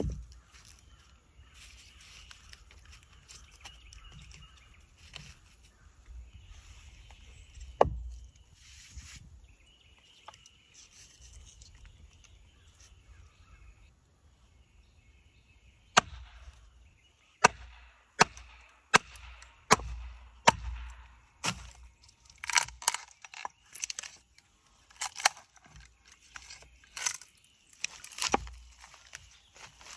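Carving axe chopping into a walnut spoon blank: sharp wooden blows, a few spread out at first, then a quick run of strikes about one a second in the second half, roughing out the spoon's shape.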